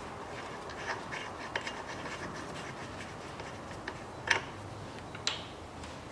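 Gloved hands working in a car's engine bay: light rubbing and scraping with scattered small clicks, two sharper clicks about four and five seconds in.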